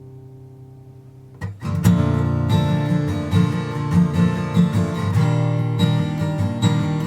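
Emerald X20 carbon fiber acoustic guitar: a held chord rings and fades, then about a second and a half in loud strumming starts and carries on.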